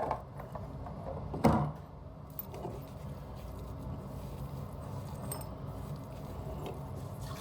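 One sharp knock of a hard object being handled about a second and a half in, then a few faint clicks over a steady low hum.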